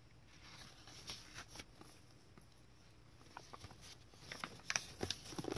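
Faint rustling and light taps of thick tea-stained paper pages being turned by hand in a handmade lace-trimmed journal, busier near the end.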